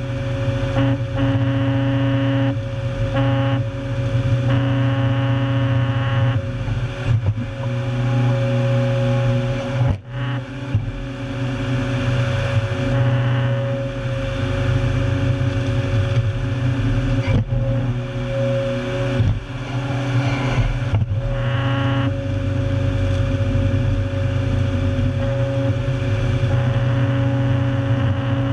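Tracked 400-plus horsepower stump destroyer's diesel engine running steadily under load while its hydraulic rotating head planes stumps and roots into chips. The sound dips briefly a few times, most markedly about ten seconds in.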